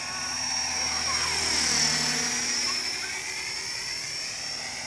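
Radio-controlled model helicopter flying low and close, its motor and rotors making a steady high whine over rotor noise. The sound swells to its loudest about two seconds in as the helicopter passes.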